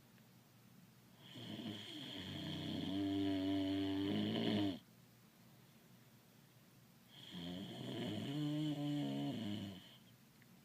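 Voiced cartoon snoring: two long, pitched snores, the first starting about a second in and lasting over three seconds, the second a little shorter near the end, each with a thin steady high whistle over it.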